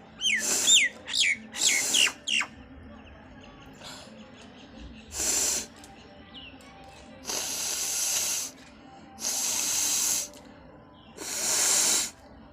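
A person blowing their nose hard. In the first two seconds or so come several quick, short nasal blasts with a thin falling whistle through the nose. Then come one short blow and three longer blows of about a second each, the last three about two seconds apart.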